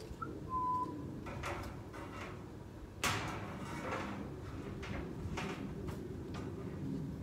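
Rough scraping and rustling noises of hand work, the loudest starting suddenly about three seconds in. About half a second in, a bird gives a short whistle: a brief higher note, then a held one.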